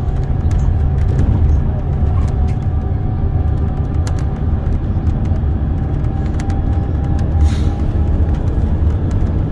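Scania coach heard from inside the cabin while on the move: a steady low engine and road rumble with a faint steady whine over it, and a brief hiss about three-quarters of the way through.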